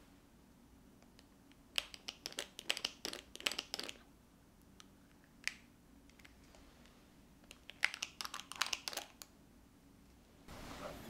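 Metal scoop putting dollops of thick cream cheese frosting onto squares of carrot cake, with frosting pressing and smearing off the scoop. It comes as two bursts of quick clicks and soft scrapes, each about two seconds long, with a single click between them.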